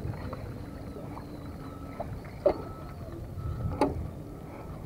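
Wind buffeting the microphone in a steady low rumble, with two short clicks, one about halfway through and another a second or so later.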